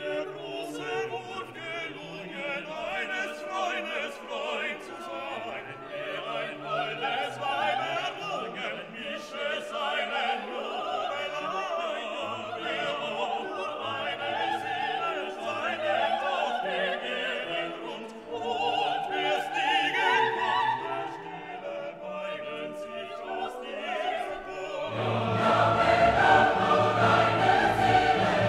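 Background music: classical vocal music with singing voices and an orchestra, swelling into a fuller, louder passage with choir a few seconds before the end.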